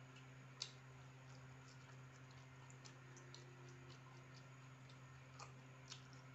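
Faint eating sounds of a person eating rice and fried chicken by hand: scattered soft clicks and mouth smacks, the sharpest about half a second in, over a low steady hum.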